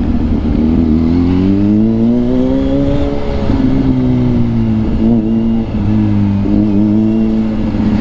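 Kawasaki Z H2's supercharged inline-four running through an aftermarket Villain exhaust while riding. The revs rise smoothly for about three seconds, ease off, hold steady, then drop near the end.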